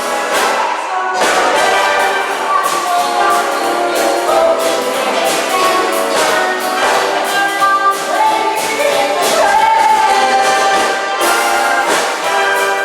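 A swing big band playing, with the trumpets and trombones of the brass section over a steady drum beat.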